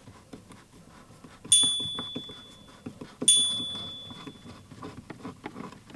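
Two bright chime dings about two seconds apart, each ringing and fading over about a second, the notification sound of a subscribe-button animation. Under them, faint light clicking of a screwdriver turning out the instrument cluster's screws.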